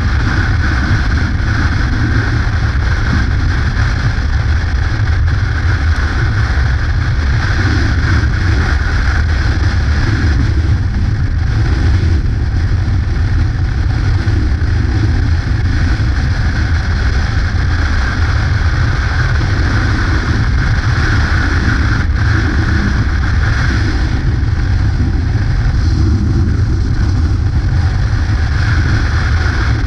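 Yamaha Ténéré motorcycle riding at a steady speed: the engine runs evenly under rushing wind noise, with no change in revs.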